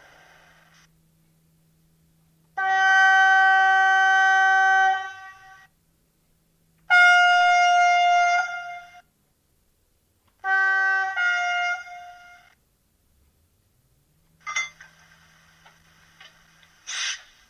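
Sound decoder of a Roco H0 model DB class 218 diesel locomotive playing its sound functions through its small loudspeaker. The diesel running sound is switched off within the first second. Then come a long horn blast, a second long horn blast and two short horn toots. Near the end there are a few metallic clanks of the simulated coupling sound.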